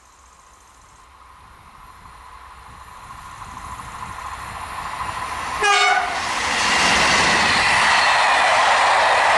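Locomotive-hauled Corail passenger train approaching, growing steadily louder, then one short horn blast about halfway through, its pitch dropping slightly as the locomotive nears. The locomotive and coaches then rush past close by with loud, steady rail and wheel noise.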